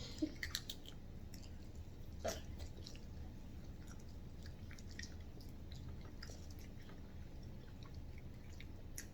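Quiet chewing with small scattered mouth clicks and smacks, over a steady low hum.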